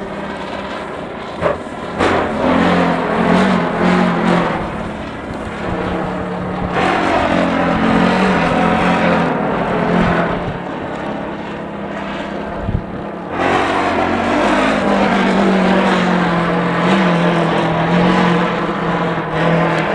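A kite buzzing and fluttering in strong, gusty wind, over wind noise. The wavering drone rises and falls with the gusts and surges suddenly about seven and thirteen seconds in.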